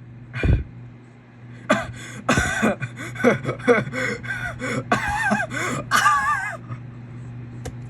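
A person's voice making wordless sounds: a run of gasps and drawn-out exclamations with bending pitch. A low thump comes about half a second in.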